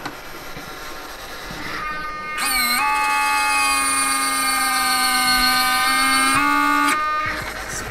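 Servo-driven retractable main landing gear of a large RC Airbus A350 model retracting: a loud, steady electric motor whine starts about two and a half seconds in, with a brief dip in pitch as it starts. It runs for about four seconds as the four-wheel bogie swings up into the bay, then cuts off sharply.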